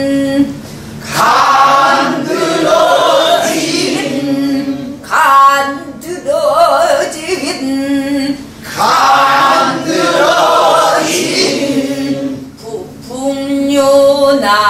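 Pansori singing taught by rote: a woman sings a short line of a danga in pansori style, with wavering, bending ornaments, and a group of learners sings it back together, phrase after phrase.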